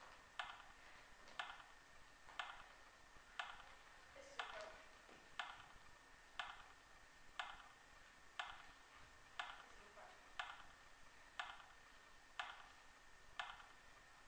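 Faint, steady clock-like ticking, one tick about every second, each tick with a short echo.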